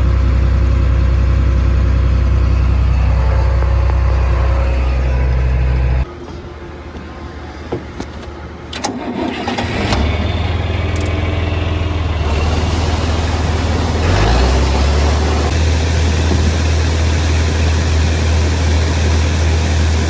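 Diesel engine of the harvest machinery running steadily, then cutting out suddenly about six seconds in. After a few clicks, an engine starts up around ten seconds in, rises in pitch near fourteen seconds and settles into a steady run.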